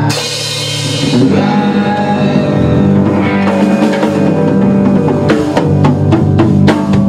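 Rock band playing an instrumental passage on electric guitar, bass guitar and drum kit, opening with a cymbal crash and ending with a run of sharp drum hits.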